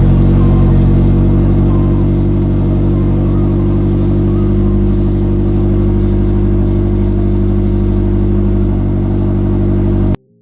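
Nissan 240SX's engine idling steadily and loudly, just after being started; the sound stops abruptly near the end.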